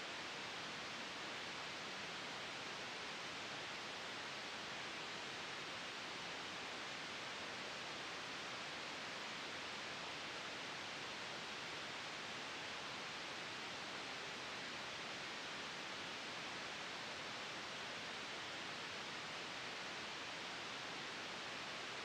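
Steady, even hiss like static, unchanging in level, with no engine, wind gusts or water sounds standing out.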